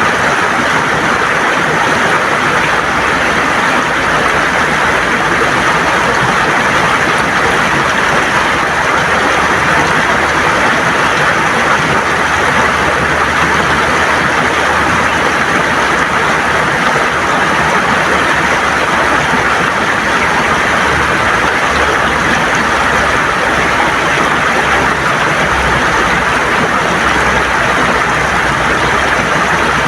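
River water gurgling and rushing over stones in a steady, unbroken wash of noise.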